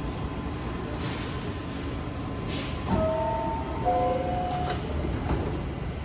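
Subway train standing at the platform with a steady low rumble, a brief hiss about two and a half seconds in, then the two-note descending door chime sounding about three seconds in. The doors slide shut with a knock about two seconds later.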